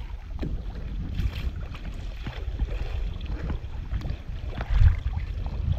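Water splashing and slapping against the hull of a Hobie Outback kayak moving under sail, with wind rumbling on the microphone; a stronger gust of wind noise comes near the end.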